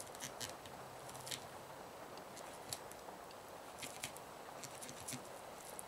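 Faint, scattered small clicks and scrapes of a knife slicing perch flesh, working the fillet off over the top of the rib bones.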